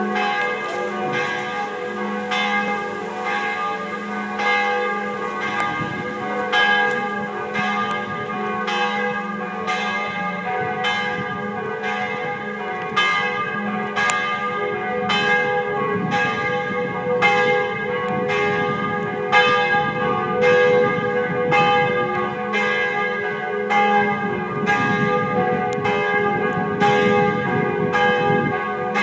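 Church bells of two churches swinging and ringing together, strokes following each other about once a second over a steady low hum.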